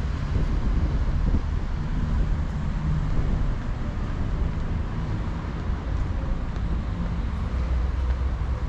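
City street ambience: a steady low rumble of road traffic passing by.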